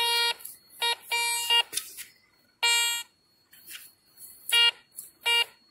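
Garrett metal detector sounding its target tone six times as the search coil sweeps over the ground: short beeps of one steady pitch, the third one longer.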